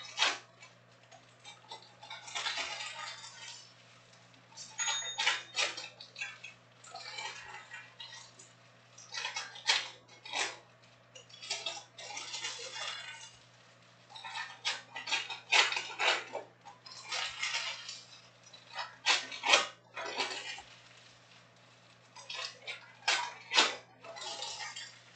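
Foil trading-card packs being torn open and crinkled by hand, with the cards inside snapping and sliding against one another: irregular rustling bursts every couple of seconds, mixed with sharp clicks.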